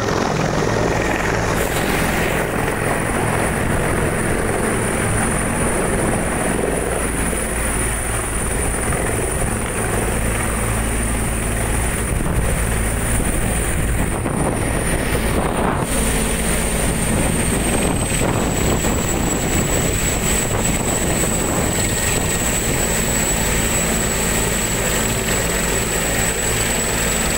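Helicopter hovering low and setting down: the rotor and turbine engine run loud and steady, with a high turbine whine that drops slightly in pitch about two-thirds of the way through.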